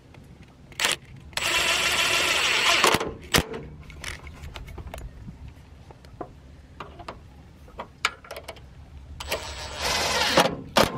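Power drill with a socket bit tightening the bolts of a hood-lift bracket on a Jeep Wrangler JK, run in two short spurts of about a second and a half each, the first the louder. A few sharp clicks of the socket on the bolts come between and around them.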